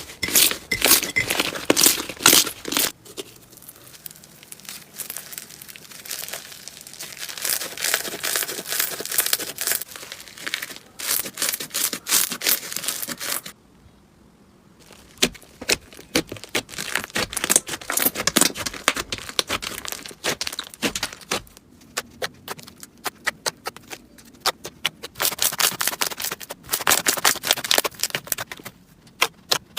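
Slime being pressed and stretched by hand, giving dense crackling and popping clicks in repeated bouts, with a brief lull about fourteen seconds in.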